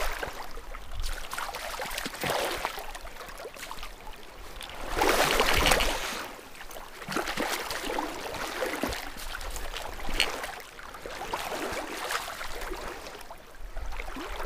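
Wading in a river: water sloshing and splashing around the legs in uneven surges, with the loudest splash about five seconds in.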